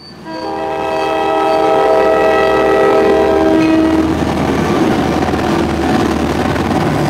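Diesel locomotive's multi-chime air horn sounding one long chord for about four seconds, then the steady rumble of the locomotive's engine and rail noise as it rolls past.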